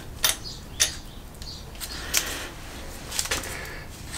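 A few sharp, light metallic clicks as camshaft bearing caps are handled and set onto the cam carriers of a Honda CB750 SOHC cylinder head.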